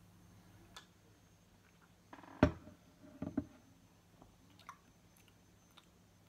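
Quiet mouth sounds of a man tasting a sip of beer, small clicks and smacks, with one sharp knock about two and a half seconds in as the glass tankard is set down on the desk.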